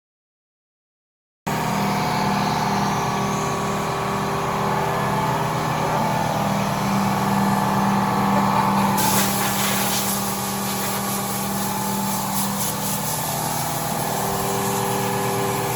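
After a second and a half of dead silence, a machine starts up abruptly and runs steadily with a low hum. From about nine seconds in, a hiss joins it.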